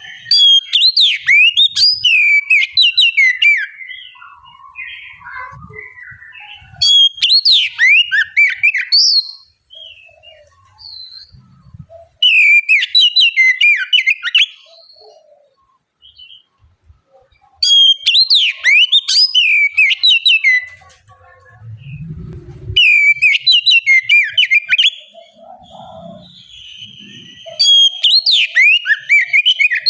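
Oriental magpie-robin singing loud, vigorous bursts of rapid whistled notes that sweep up and down, each burst lasting two to three seconds and repeating about every five seconds, with softer scattered calls in between.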